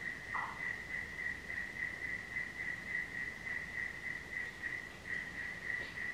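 Steady high-pitched chirping of a small night animal, pulsing a few times a second. A brief faint squeak about half a second in.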